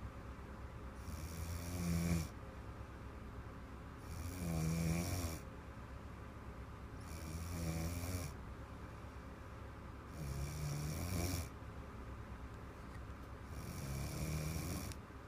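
A little girl snoring: five big snores about three seconds apart, each a buzzing rasp lasting a second or more, with quieter breathing between.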